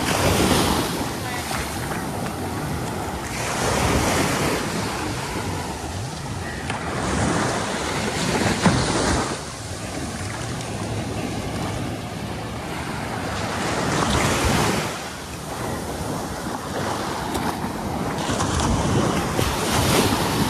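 Sea surf: waves breaking and washing up the beach, the rush swelling and ebbing every few seconds.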